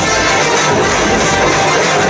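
Indian film song played loud for a stage dance.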